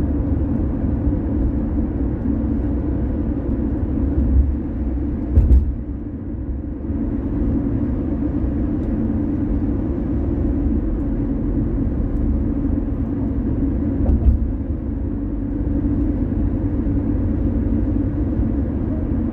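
A car driving on a city road: a steady low rumble of tyre and engine noise, with two brief thumps, about five and fourteen seconds in.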